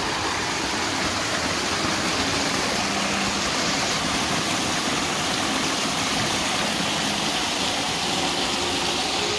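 Water rushing and splashing steadily down a wooden mill flume, the open wooden channel that feeds a watermill's waterwheel.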